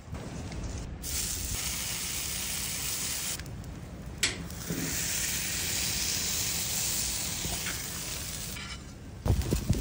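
Potatoes sizzling on a hot flat-top griddle as they are pressed flat, a steady hiss broken by two short gaps, with a single sharp click about four seconds in.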